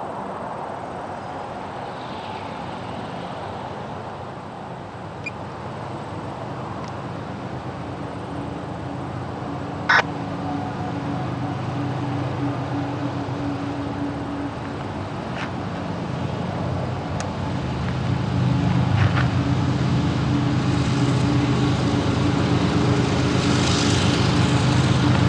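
A freight train passing: loaded tank cars rolling on the rails, then the diesel engines of its two GE locomotives (an ET44AH and an ES44AH) running with a steady hum that grows louder. One sharp clank comes about ten seconds in.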